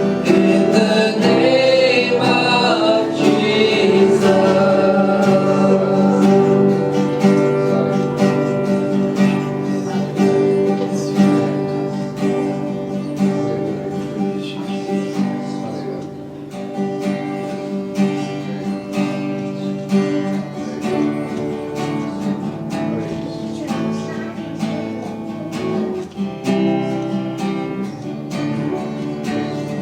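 Worship band music: the sung line of the song trails off in the first few seconds, then the band plays on without singing, acoustic guitar strumming over held chords.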